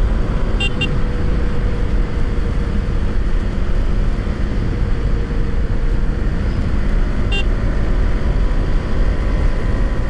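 KTM Duke motorcycle engine and wind noise, steady, as heard from the rider while under way on the road. Brief high toots come about half a second in and again near seven seconds.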